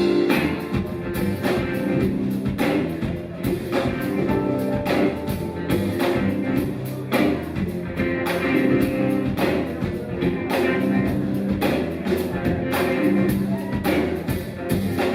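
Live rock band playing an instrumental passage: a steady drumbeat under a prominent bass line.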